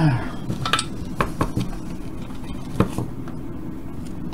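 A few sharp clicks and clinks of small metal tools and parts being handled on a soldering workbench, spread over about two seconds, the loudest near the end.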